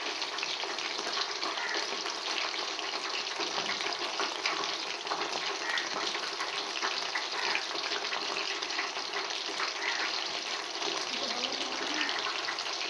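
Chicken pakoras deep-frying in hot oil in a metal kadai: a steady bubbling sizzle with fine crackling.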